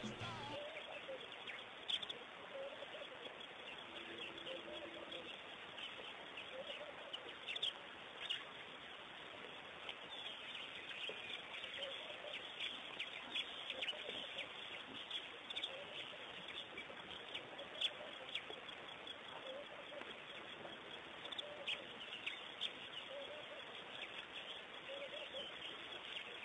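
Birds chirping and calling over steady outdoor ambience at a waterhole: many short, high chirps throughout, with some lower calls.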